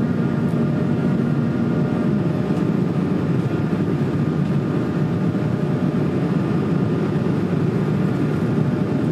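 Inside the cabin of an Airbus A220 climbing after takeoff: the steady noise of its Pratt & Whitney PW1500G geared turbofans and rushing air, heard from a window seat over the wing. A faint low steady tone under it stops about two seconds in.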